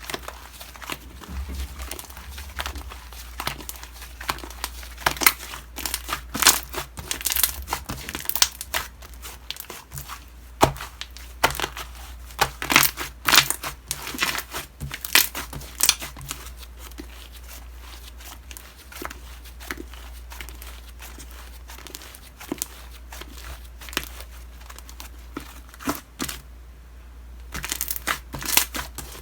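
Slime being squished and stretched by hand, making irregular crackling pops and crinkly clicks. The clicks come thickest in the middle and again near the end, with a quieter patch of softer handling between.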